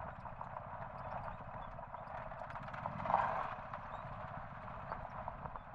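Horse's hooves clip-clopping in an irregular run of knocks, with a brief louder swell of sound about halfway through.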